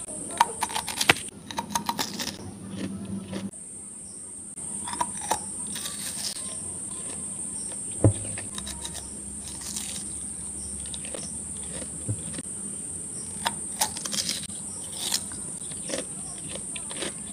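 Wet mouth clicks and lip smacks from sucking a hard sugar candy with closed lips: scattered short clicks, some sharper, over a steady high-pitched whine.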